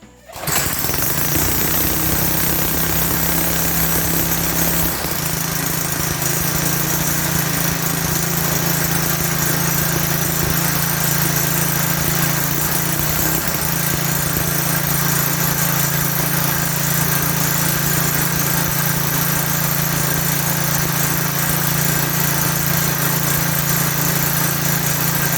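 3.5 HP Tecumseh single-cylinder four-stroke engine on a lawn edger catching right away after being primed and running steadily at speed, its pitch shifting slightly a few times. It runs after the primer bulb has been replaced.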